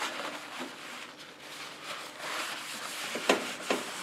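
Damp paper towel wiping across the nonstick cooktop of a Blackstone E-Series 22-inch electric griddle, a soft rubbing swish, with two short knocks a little over three seconds in.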